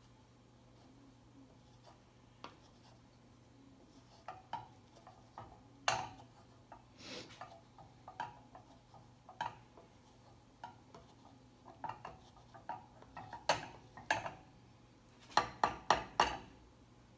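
Wooden spatula scraping and knocking against a skillet as omelette eggs are stirred and pushed around the pan, in irregular strokes with a longer scrape about seven seconds in and a quick run of louder knocks near the end.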